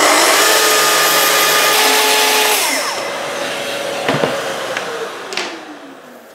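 Festool TS55 plunge track saw, fitted with a 28-tooth universal blade, ripping a thick board along its guide rail, with dust extraction running. The cut ends about three seconds in, the sound drops, and the pitch falls away as the motor winds down, with a couple of sharp knocks near the end.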